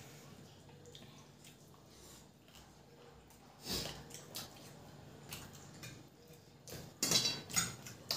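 Eating by hand: fingers mixing rice with curry on steel plates, with soft wet squelches and clicks, and a few louder brief smacks about halfway through and again near the end.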